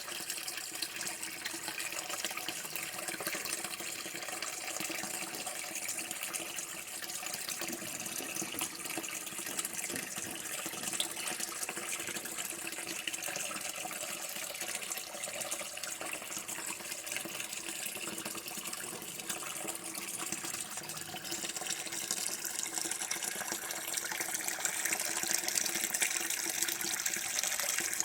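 Running water pouring and splashing steadily, like a running tap; it grows a little louder and hissier about three quarters of the way through.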